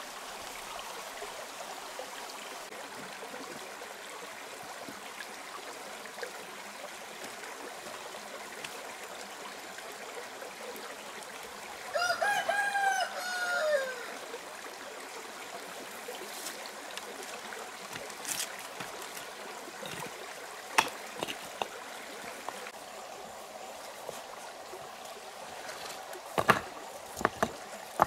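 A stream trickles steadily over rocks. About halfway through, a rooster crows once for about two seconds. Later come several sharp knocks of stone on stone as flat rocks are laid, bunched near the end.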